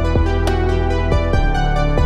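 Upbeat electronic dance music with held synthesizer chords over a steady drum beat.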